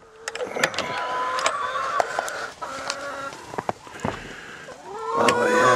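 Hens in a coop calling with drawn-out, wavering notes and clucks, over sharp clicks and rattles of a metal hasp latch being worked on the wooden door. The hens' calls grow louder near the end.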